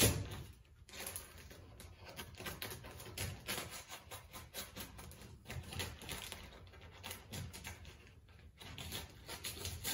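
Kraft-faced fibreglass insulation batt crinkling and rustling as it is pressed and tucked into a stud bay around an electrical box and its wiring: a dense, irregular run of small crackles.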